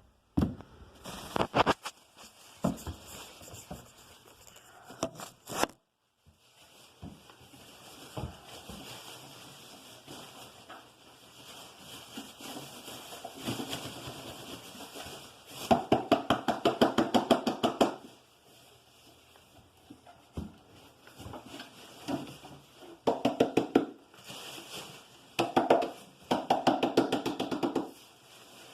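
Plastic dust cup of a Hoover twin-chamber bagless vacuum being shaken and knocked out into a bag to empty it, with rustling and three bursts of rapid knocking, several taps a second, the longest about halfway through.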